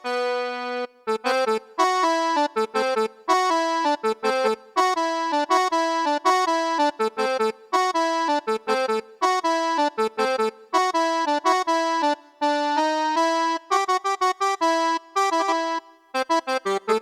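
Electronic keyboard playing a quick melody of short, bright synthesizer notes over a lower line of repeated notes, with no bass or drums.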